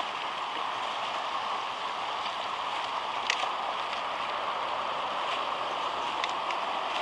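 Steady rushing noise of a bicycle being ridden, tyres on the road surface and air moving over the microphone, with a faint click about three seconds in and another near the end.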